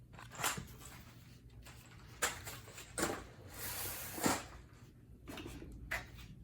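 Handling of packaged hive hardware: plastic bags of screws and cardboard rustling and crinkling, with several sharp clicks and knocks and a longer rustle a little past the middle.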